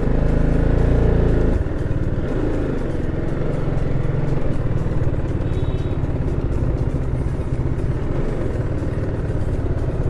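Motorcycle engine running at low speed as the bike rolls slowly into a parking spot. It is a little louder for the first second and a half, then settles to a steady low running note.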